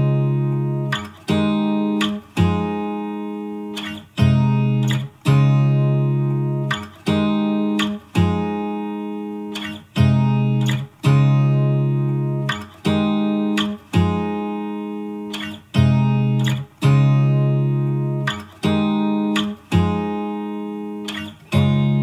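Background music of guitar chords, struck one after another and each left to ring and fade.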